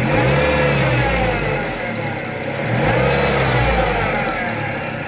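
2009 Ford Escape engine revved twice, the pitch rising, holding about a second and a half and falling back each time, run to bring out an abnormal noise.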